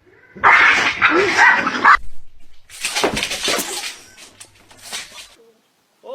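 A dog vocalising in two loud, rough bursts of about a second each, then a few softer sounds.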